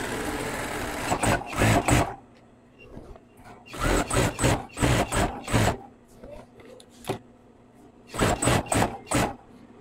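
Industrial single-needle sewing machine stitching a jeans seam: one steady run at the start, then three short stop-start bursts as the seam is fed through.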